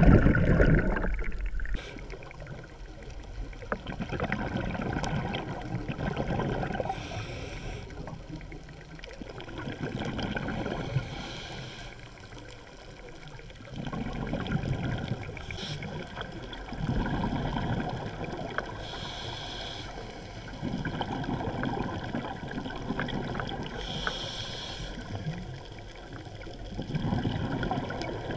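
Scuba diver's regulator breathing underwater: exhaled bubbles swelling and fading about every three to four seconds, with a short higher hiss on some breaths.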